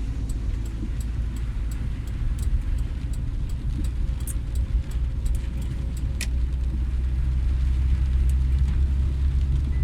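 A car's steady low rumble with road noise, growing a little louder in the second half, with scattered sharp ticks over it.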